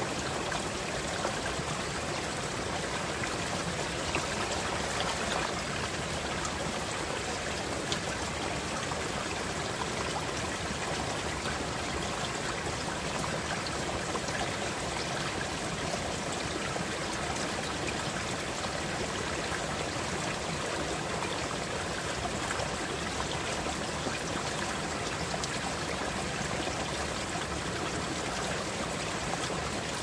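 Flowing water, a steady unbroken rush.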